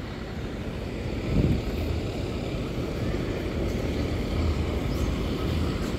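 Steady low rumble of motor vehicles running at a bus terminal, with a brief swell about one and a half seconds in.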